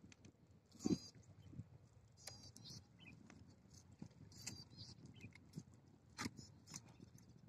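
Short high-pitched chirps from a small animal, repeating every second or two, with a few brief clicks and soft crunches; the loudest chirp is about a second in.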